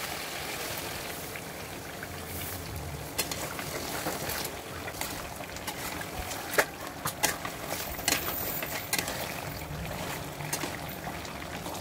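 Chicken in a kadai bubbling and sizzling gently in its sauce just after a cashew-almond paste goes in, while a metal spatula stirs it, with scattered clicks and scrapes of the spatula against the pan.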